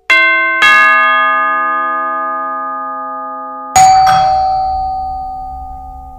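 Doorbell chime: two quick ringing notes, then a lower note about three and a half seconds later, each slowly fading out.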